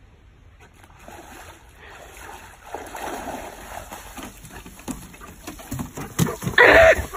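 A dog splashing and wading out of creek water, then its paws clattering on a wooden boardwalk. Near the end a short, loud high-pitched cry cuts through.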